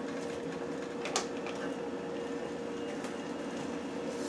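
Steady mechanical hum of a kitchen appliance while an electric stove's burner knob is turned down from high to about 7, with one click about a second in.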